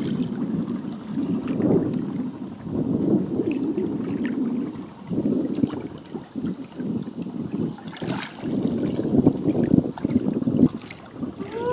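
Water sloshing and lapping around a man wading chest-deep and groping along the bottom by hand, with wind buffeting the microphone in uneven gusts.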